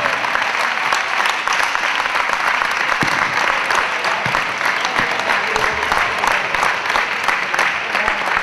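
Spectators applauding: dense, steady clapping from a crowd.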